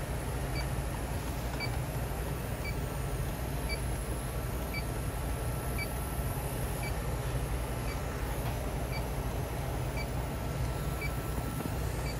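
Electronic refrigerant leak detector giving a short, faint beep about once a second, its steady rate while it senses no refrigerant and reads zero. Under it runs a steady low machine hum.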